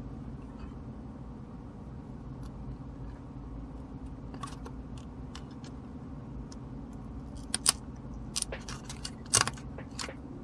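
Sharp plastic-and-metal clicks as a MOS 6510 CPU chip is handled and pressed into its 40-pin socket on a Commodore 64 motherboard, coming in the second half, the loudest two about three-quarters of the way through and near the end. A steady low hum runs underneath.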